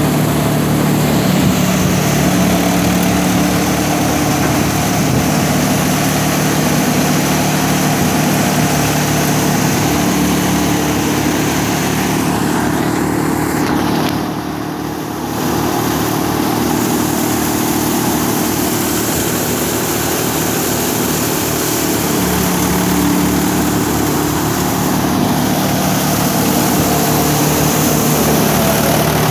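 Tractor engine running steadily while it drives a threshing machine, with a brief drop in level about halfway through.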